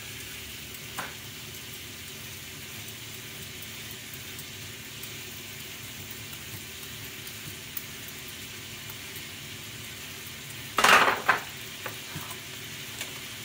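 Thinly sliced onions sizzling in oil in a stainless frying pan, a steady hiss. About eleven seconds in comes a short, loud clatter of a metal vegetable peeler set down on a wooden cutting board.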